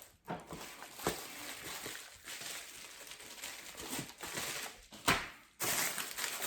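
Plastic packaging rustling and crinkling as a parcel is opened, with a few sharp clicks, the loudest about a second in and about five seconds in.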